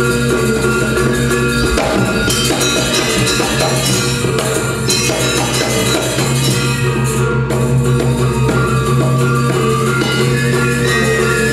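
Balinese gamelan playing: bronze metallophones ringing in dense interlocking figures over a steady low hum, with hand-drum strokes.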